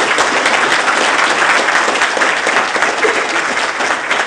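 Audience applauding: a roomful of people clapping steadily.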